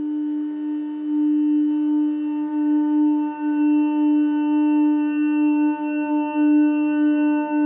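Background music: one long held drone note with a stack of overtones, steady in pitch and pulsing slightly in level.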